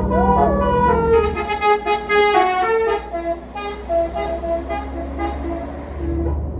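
Basuri 'telolet' musical air horn on a tour bus playing a quick melody of short stepping notes, over the low rumble of the bus's engine.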